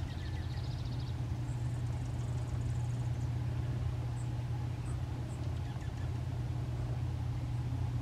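A steady low hum, the loudest sound throughout. Above it, small birds give a short high buzzy trill near the start and again around two seconds in, and three thin high chips about four to five and a half seconds in.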